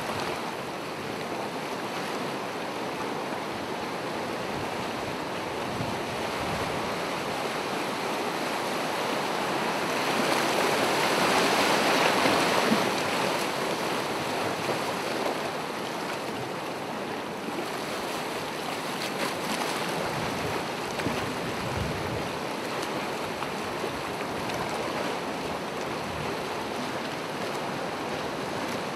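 Gentle ocean waves washing onto the shore in a steady rushing hiss, with one wave breaking louder about a third of the way in.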